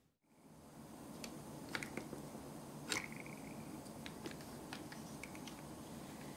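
Faint clicks and taps of small plastic miniature toy parts being handled, a toy dispenser and its little cup, with a short plastic squeak about three seconds in, right after the loudest click.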